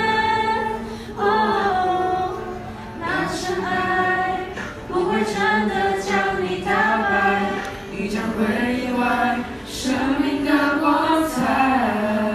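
A choir singing a cappella: several voices in harmony moving through sung phrases, with no instrumental accompaniment.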